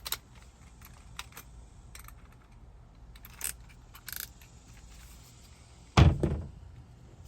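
Scattered small clicks and knocks, a short hiss about four seconds in, then one loud heavy thunk about six seconds in that rings on briefly.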